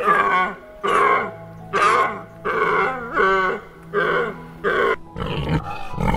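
An animal calling in a quick series of short, wavering cries, about one every 0.8 seconds. About five seconds in, the calls give way to lower grunts.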